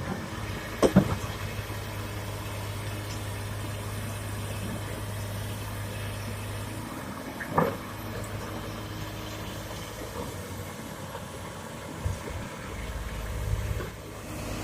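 Diesel engine of heavy earthmoving machinery running steadily, with two short sharp knocks, one about a second in and one midway, and a deeper low rumble swelling near the end.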